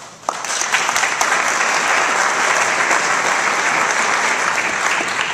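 Audience applauding, starting suddenly just after the beginning and dying away at the end.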